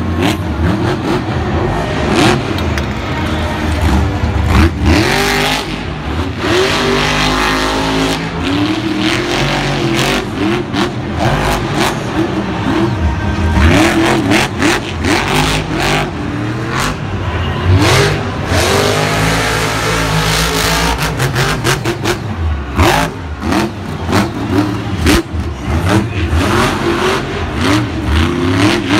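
Monster truck supercharged V8 engines revving hard, the pitch climbing and dropping over and over, with frequent sharp cracks and bangs throughout.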